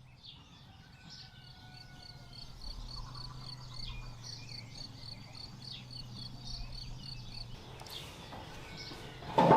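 Outdoor countryside ambience: a high chirping repeated steadily several times a second, with a few bird calls and a faint low hum underneath.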